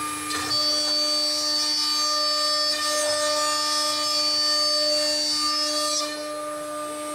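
Automatic-tool-change CNC router spindle whining steadily at a high, even pitch, its bit cutting into a wooden board. The cut grows louder and hissier from about half a second in and eases off about six seconds in.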